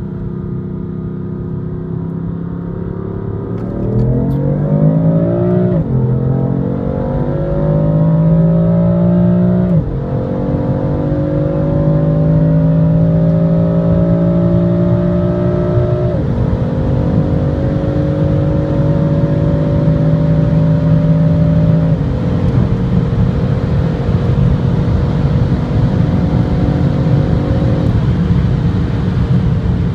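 BMW M3 F80's twin-turbo inline-six heard from inside the cabin, cruising steadily, then going to full throttle about four seconds in and pulling hard through the gears. The engine note rises in pitch and drops sharply at each of five upshifts, and the later gears are held longer.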